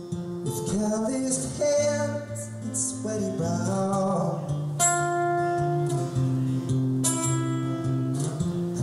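Acoustic guitar strummed and picked under a man's singing voice, with long held notes: a live solo singer-songwriter performance.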